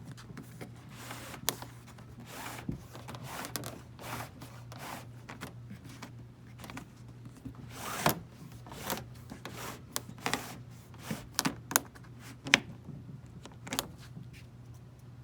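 Irregular clicks, knocks and scrapes of handling, scattered through and strongest in the second half, over a steady low hum.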